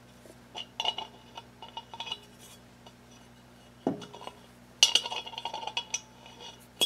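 A steel nut being threaded by hand onto the center bolt of a bubble wheel balancer's aluminum head: irregular small metallic clinks and rattles that ring briefly in the metal bowl, with a knock about four seconds in and a quicker run of clinks soon after.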